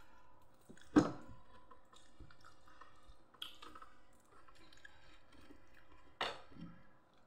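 Mouth-close eating sounds, chewing with wet, squishy noises, broken by sharp clicks about a second in and again near the end.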